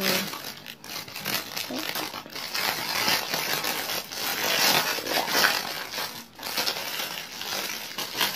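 Clear plastic wrapping crinkling and rustling irregularly as a helmet visor is handled and pulled out of it by hand.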